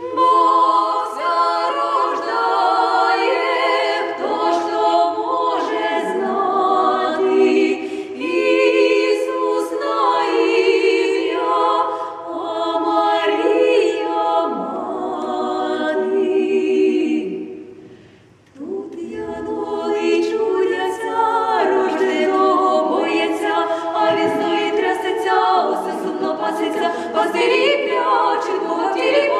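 Ukrainian female vocal trio singing a cappella in harmony, several sustained voices at once. The singing breaks off briefly a little past the halfway mark and then resumes.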